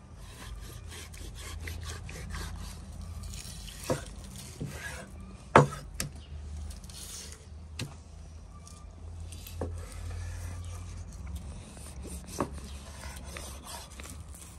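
Raw beef heart being cut open and sliced with a large kitchen knife on a wooden cutting board: the blade rubs through the meat and knocks sharply on the board several times, loudest about five and a half seconds in.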